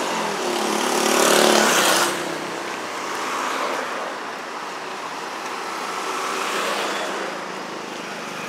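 Street traffic, with a vehicle passing close about a second in; its noise drops away suddenly at about two seconds.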